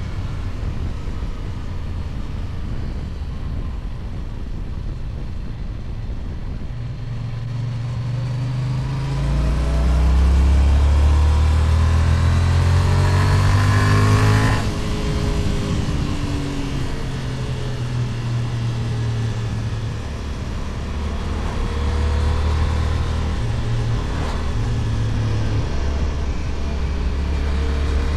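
Kove 625X Adventure motorcycle engine through its stock exhaust, riding on the open road. The engine pulls harder and louder from about a third of the way in, drops back suddenly just past halfway, then builds again near the end.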